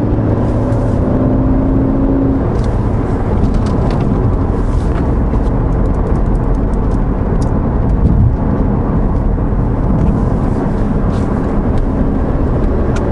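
Ford Focus ST's turbocharged 2.0-litre four-cylinder running at a steady cruise, with tyre and road rumble, heard inside the cabin. There is no clunk from the rear suspension over the bumps: the newly fitted Steeda sway bar end links have cured the noise, and the car is nice and silent.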